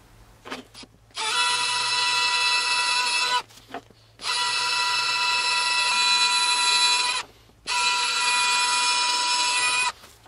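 Electric drill running in three bursts of two to three seconds each, a steady whine as a twist bit bores holes into a white plastic cylinder. A few light knocks fall in the gaps between bursts.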